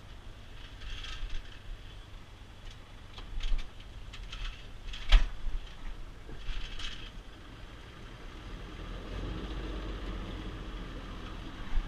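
A sailboat's auxiliary engine running at low speed while docking, a steady low rumble, with scattered clicks and knocks around the boat and one sharp knock about five seconds in. The engine grows louder for the last few seconds.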